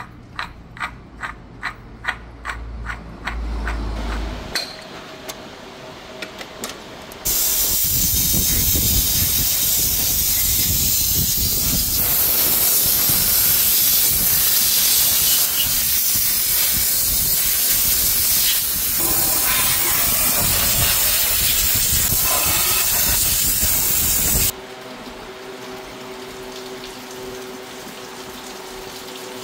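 A pressurized cleaning jet sprays against the exposed engine front, making a loud, even hiss that starts suddenly about seven seconds in and cuts off suddenly near the end. Before it comes a run of short ticks, about three a second.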